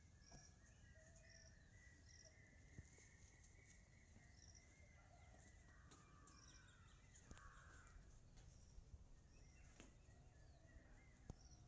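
Faint outdoor ambience with distant birds calling: a short high chirp repeating about once a second, along with a few other twittering calls.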